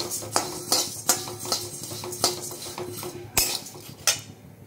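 Metal spatula scraping a steel kadai and tossing crisp frying flattened rice (chira) flakes, in repeated clattering strokes about two or three a second, fading near the end.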